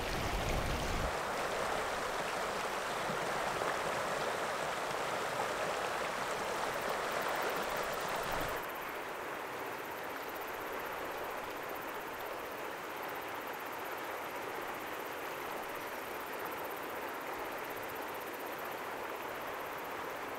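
Steady rushing of a flowing mountain river. About eight and a half seconds in it changes abruptly to a quieter, duller flow.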